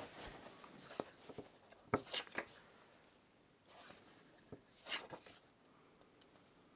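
Pages of a glossy photo booklet being turned by hand: a handful of faint, short paper rustles and light taps with pauses between them.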